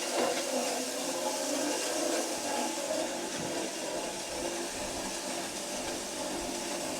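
Grain mill grinding dried corn, a steady running noise.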